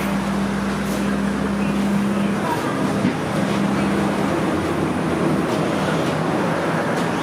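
Steady rushing background noise, like road traffic, with a low steady motor hum that breaks off about two and a half seconds in, comes back briefly and fades out about four seconds in.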